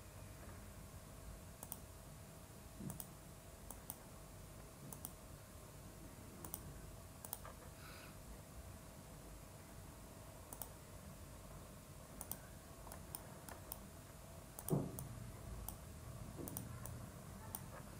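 Computer mouse clicks, soft and irregular, a dozen or so spread across the stretch, as wires are placed point by point in a schematic editor. A faint steady hum runs underneath, and there is a soft low thump near the end.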